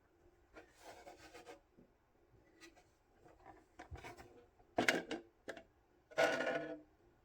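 Packaging being handled during an unboxing: irregular rubbing and scraping with a few small clicks, the loudest scrapes about five seconds in and again just after six seconds.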